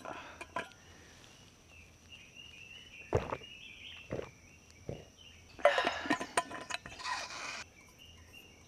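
Forest ambience with a steady high insect drone and scattered bird chirps, broken by a few sharp knocks and a louder stretch of rustling and handling noise about six seconds in.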